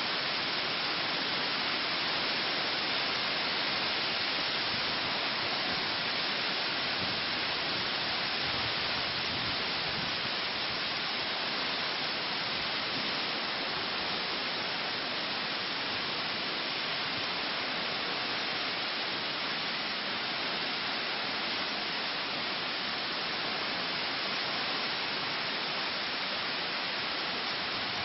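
Hurricane-force wind and driving rain, a steady unbroken hiss that holds at an even level.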